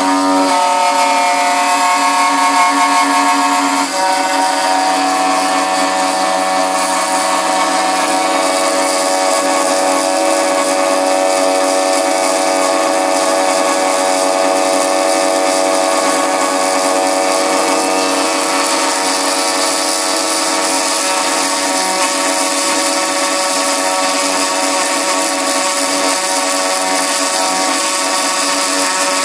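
Self-made high-speed milling spindle, driven by a brushless motor, running with a steady whine while a small end mill cuts 7075 aluminium. The tone pattern changes about four seconds in.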